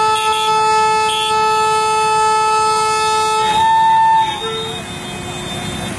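Diesel locomotive's air horn blowing a warning as the train approaches the crossing. It gives one long, steady chord-like blast, then two short toots a little after halfway, and gives way to traffic and street noise.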